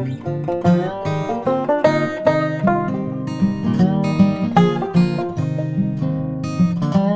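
Background music: acoustic guitar picking a quick melody over bass notes.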